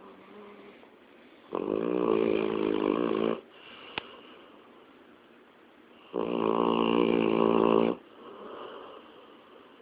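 Snoring: two long, pitched snores, each lasting nearly two seconds and about four and a half seconds apart, with quieter breathing between them. A single sharp click comes about halfway through.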